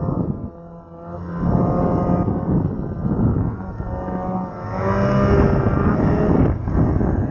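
Ski-Doo Summit X snowmobile's two-stroke engine with a tunnel-dump exhaust, revving hard in deep powder. The throttle drops off about half a second in, then the engine climbs back up, rises in pitch again around five seconds and eases off shortly before the end.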